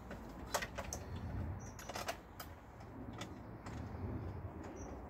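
Sharp plastic clicks and taps, irregular and about a dozen in all, as a scooter's bottom plastic body panel is pushed and clipped into place on the frame.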